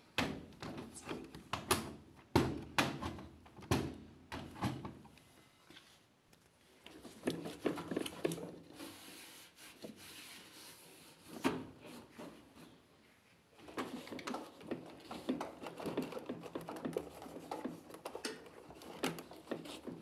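Irregular knocks, clicks and scraping from a washing machine's parts and panels being handled.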